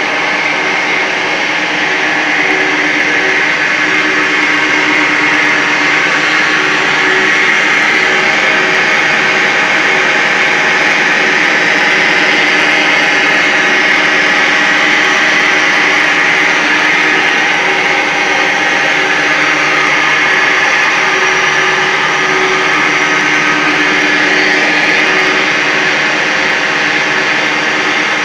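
Plastic recycling plant running: the motors and drives of a mother-baby (two-stage) extruder line giving a loud, steady hum with a whine over it, unbroken throughout.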